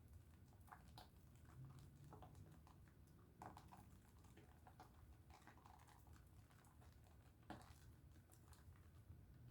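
Faint, irregular wet squishing and clicking of hands lathering a bar of Dove soap, over a low steady hum.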